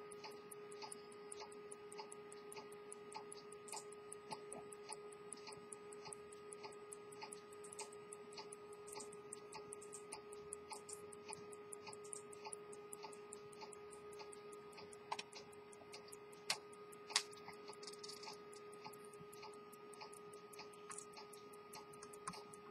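Swiss quarter-repeater pocket watch movement ticking fast and evenly as it runs, faint, over a steady low hum. A few sharper metallic clicks come about two-thirds of the way through.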